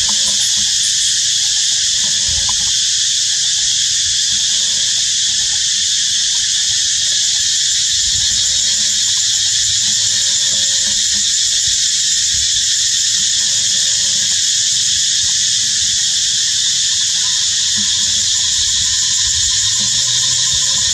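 Cicada chorus in the forest canopy: a steady, loud high-pitched buzz that never lets up, with a few faint short squeaks now and then.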